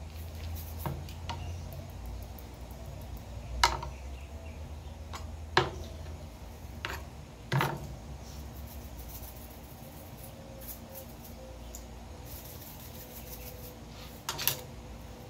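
Handling noises while a steak is seasoned on a plastic cutting board: a scattering of sharp clicks and knocks as a seasoning bottle and tongs are picked up and set down. Short spells of fine crackling come from a twist-top seasoning grinder.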